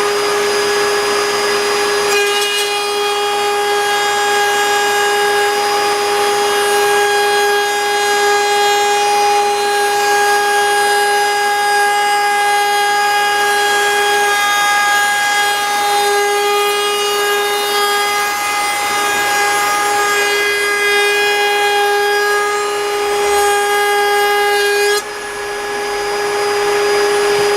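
Table-mounted router spinning with a steady high whine while the dust-extraction vacuum runs, cutting an ogee profile along a wood edge from about two seconds in. Near the end the cut stops abruptly, the extra higher tones drop out and the router keeps spinning.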